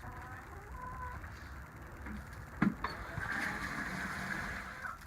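Water running from an outdoor hose bib into a chicken waterer, a steady hiss over the last couple of seconds, after a single sharp knock about two and a half seconds in.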